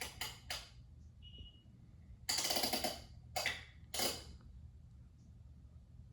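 Hunter Original ceiling fan with a cast iron oil bath motor running with a low steady hum. Several short breathy or hissing bursts of noise from an unidentified source cut in over it, the longest and loudest about two and a half seconds in.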